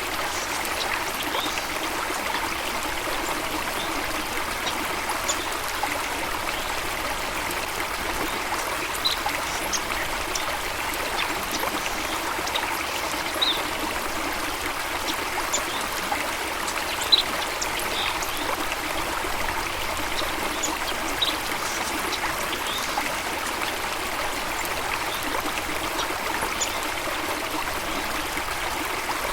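Steady running water with an even rushing sound, flecked with brief, faint high ticks scattered throughout and one sharper click about two-thirds of the way through.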